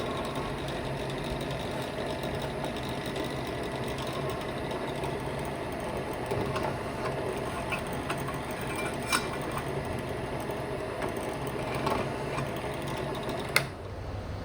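Electric drill running steadily while chamfering a drilled hole in steel, with a few light clicks from the bit. It stops shortly before the end.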